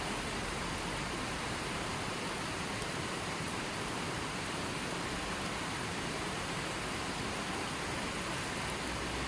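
Steady, even rushing hiss of water, without a break or change.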